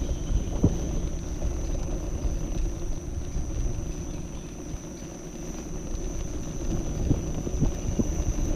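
Kingsong KS14 electric unicycle's tyre rumbling and rattling over cobblestones, a dense run of small knocks that grows louder near the end. A thin steady high whine runs along with it.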